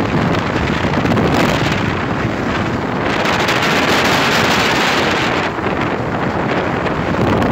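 Wind rushing over a phone microphone mixed with the road noise of a car driving at speed, a loud steady rush that swells and eases every second or two.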